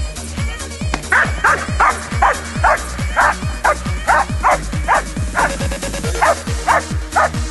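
German shepherd barking rapidly and steadily, about two or three barks a second, as it holds a helper in a blind in the bark-and-hold exercise of protection training. The barks start about a second in and pause briefly near the end, over electronic music with a steady thumping kick-drum beat.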